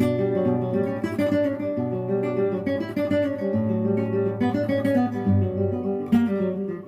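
Acoustic guitar music: strummed chords mixed with quick plucked notes, starting abruptly.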